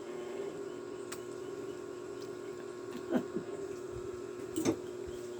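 A steady electrical hum with a few short clicks and smacks over it: a faint one about a second in, then two louder pairs a little after three seconds and around four and a half seconds.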